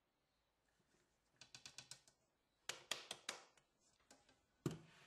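Light clicks and taps from handling the coffee grinder's plastic lid and bowl: a quick run of small clicks about a second and a half in, another cluster around three seconds, then a sharper knock near the end.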